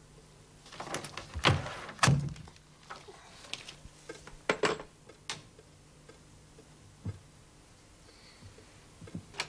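Two heavy thuds, then a few scattered knocks and sharp clicks, among them the handle and latch of a door being opened.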